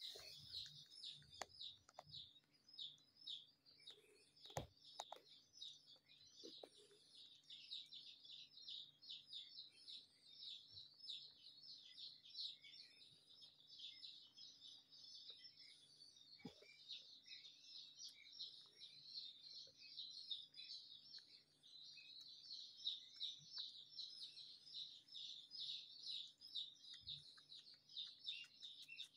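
Faint, dense chirping of small birds, many quick chirps a second without a break, over a faint low hum and a few soft knocks.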